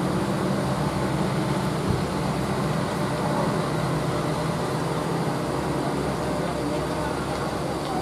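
Steady low hum of an engine running, over a haze of road traffic noise as a car comes down the road past the roadside.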